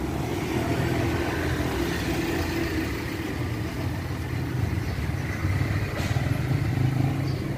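Motor vehicle engine running steadily close by, a low hum in street traffic that grows a little louder in the second half.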